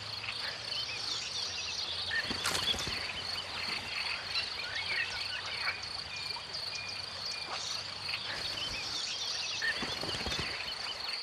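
Insect chorus: a steady high-pitched drone, with scattered short chirps over it.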